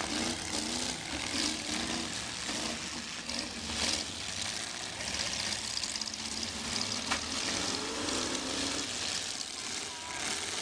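Demolition derby car engines running and revving together in a rough, steady drone, with a sharp knock about four seconds in.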